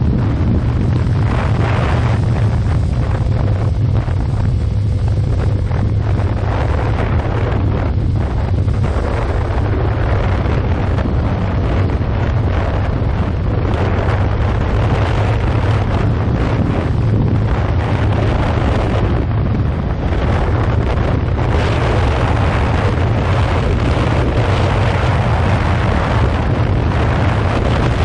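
Wind buffeting the microphone on a moving motorcycle, with the 2015 Yamaha FZ6R's parallel-twin engine droning steadily underneath. The wind rush grows louder about three quarters of the way through.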